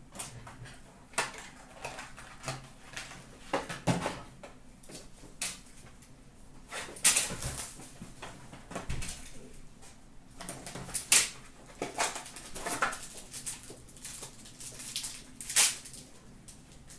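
Sealed cardboard trading-card box being unwrapped and opened by hand: irregular crinkling and tearing of its plastic wrap, with scrapes and taps of cardboard and a few sharper rips.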